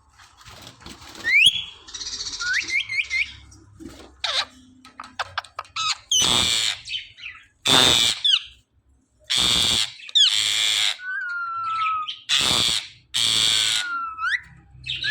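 Green ringneck parrot calling: short whistles that slide in pitch, then about six loud, harsh squawks in the second half, with whistled slides between them.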